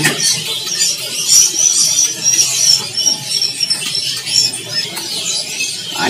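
Caged songbirds chirping: a string of short, high-pitched chirps, one every fraction of a second, thinning out towards the end.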